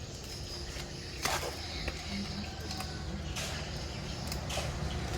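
A few sharp clicks and knocks over a low steady hum: hands and tools at work installing an air conditioner.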